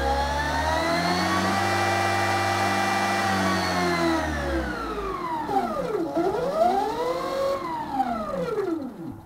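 Home-built brushless DC motor, a Motenergy ME0913 stack driven by a Kelly controller, running with a steady electric whine. The whine then winds down in pitch, rises again briefly and falls away as the motor spins down near the end. The motor runs with some vibration, which the builder puts down to one rotor disc being slightly off-centre.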